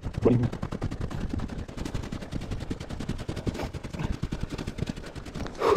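Boots crunching through packed snow while walking, a dense unbroken run of short crunches.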